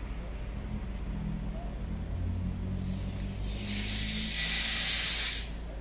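A car engine running with a low hum, then a loud hiss starting about three and a half seconds in and lasting about two seconds.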